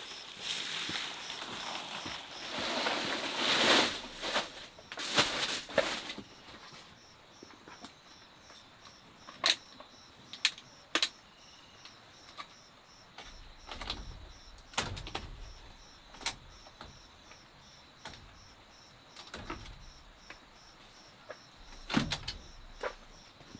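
Dry palm fronds rustling and crackling as they are handled, for about the first six seconds. After that, scattered sharp knocks and clicks, likely bamboo knocking, over a faint, evenly repeating high chirp.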